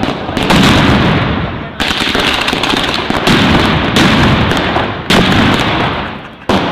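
Mascletà firecrackers (masclets) exploding at ground level in a loud, unbroken barrage of rapid blasts. Fresh surges of explosions start about half a second, two, four and five seconds in.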